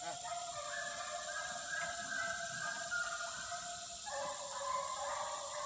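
A pack of hounds baying together while running a trail: several long, overlapping bawls that change pitch, with a shift about four seconds in.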